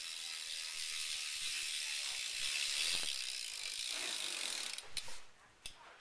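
A BMX bike's Salt cassette rear hub freewheeling as the wheel spins, its pawls clicking in a fast, loud buzz that slows into separate clicks in the last second or so as the wheel coasts down.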